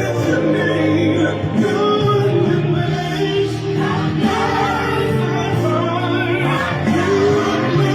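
Gospel worship music with a choir singing over instrumental backing.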